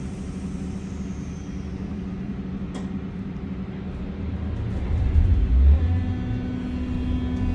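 Berlin U-Bahn train running, heard from inside the passenger car: a steady low hum and rumble with a single click about three seconds in. The rumble swells louder about five seconds in, and a steady tone sets in near the end.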